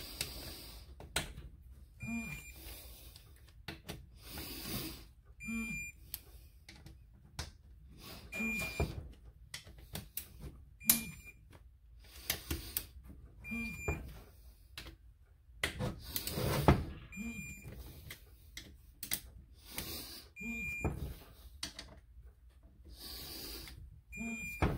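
Torque wrench beeping briefly, about nine times a few seconds apart, each time a cylinder head bolt reaches its set torque, with light ratcheting between. The head bolts of a Yamaha 701 two-stroke's ADA girdled head are being rechecked at final torque.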